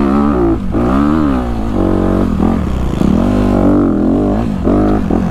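2020 Honda CRF250RX's single-cylinder four-stroke engine under load on a steep dirt climb, revving up and falling back over and over as the throttle is worked, with several brief dips.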